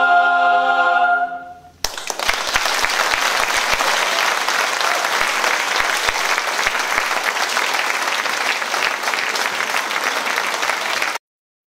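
A mixed choir holds a final sung chord that dies away about a second and a half in. The audience then starts clapping, steady applause that cuts off abruptly near the end.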